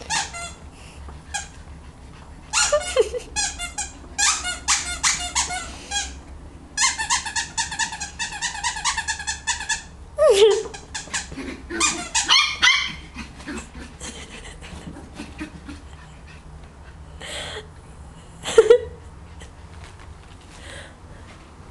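Squeaky toy squirrels squeaking in quick runs of many short squeaks, mixed with a few short yips from a Cavalier King Charles spaniel puppy.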